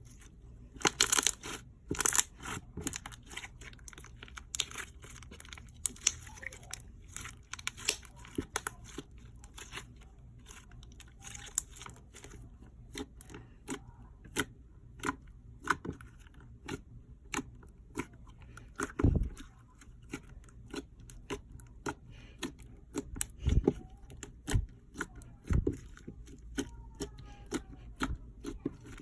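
Slime being squished, stretched and poked by hand, giving a steady run of quick sticky clicks and pops, with a few louder thumps in the second half.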